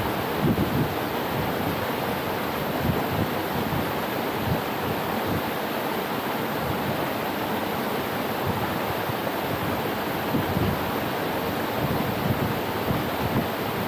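Steady rush of flowing water, with irregular low buffeting of wind on the microphone.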